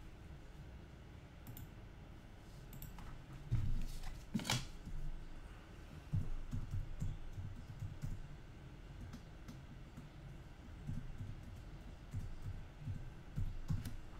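Typing on a computer keyboard: short runs of soft key taps with pauses between, and one sharper click about four and a half seconds in.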